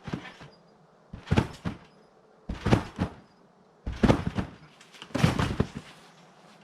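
Trampoline mat and springs taking a person's bounces: five rhythmic landings, each a thump with a short rustling creak, about one and a quarter seconds apart.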